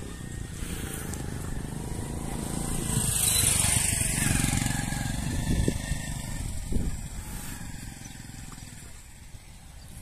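A motor vehicle passing by: a low engine rumble that builds to its loudest about three to four seconds in, with a rushing hiss at the peak, then fades away.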